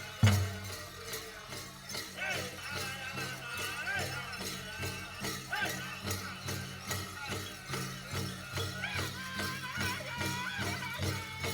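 Powwow drum song: a big drum struck in a steady beat with high-pitched singing over it, and jingling like dancers' bells. A hard, loud drum beat right at the start gives way to softer, even beats.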